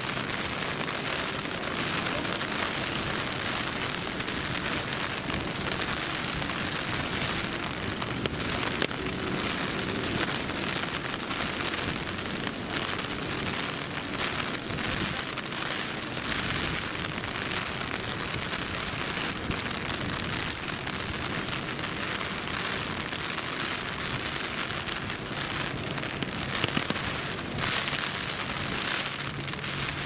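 Steady rain falling, with many small drop taps and a few louder ones.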